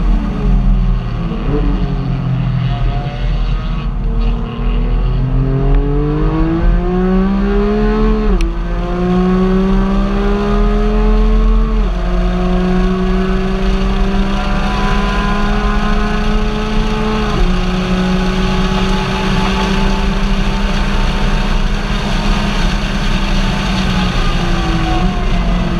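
Car engine running while driving, over steady road rumble. The engine pitch climbs under acceleration, drops sharply at a gear change about eight seconds in, then holds nearly steady with small dips at later shifts, and falls away near the end.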